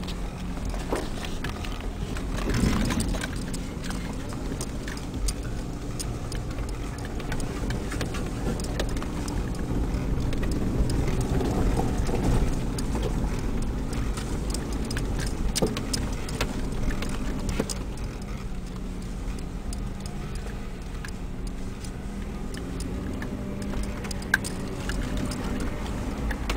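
Inside the cabin of a Toyota RAV4 driving slowly on a rough dirt track: the engine runs steadily under a rumble of tyres on gravel, with scattered knocks and rattles from the bumpy ground.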